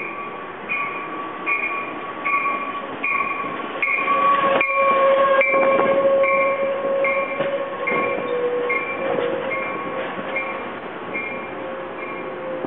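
Passenger train arriving at a station platform: the locomotive bell rings steadily, a little more than once a second, and its pitch drops slightly as the locomotive passes about five seconds in. Under the bell is the rumble of the engine and cars rolling by, loudest as the locomotive goes past. A steady squeal starts about halfway through as the cars pass.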